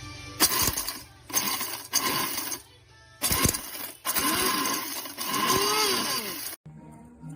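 Electric stainless steel coffee grinder's motor running in short pulses, about five bursts of a few seconds or less, the longest near the end, then stopping abruptly.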